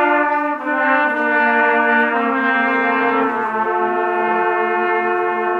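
Trumpet quintet playing in harmony: several sustained notes moving together from chord to chord, then settling about three and a half seconds in on a long held chord.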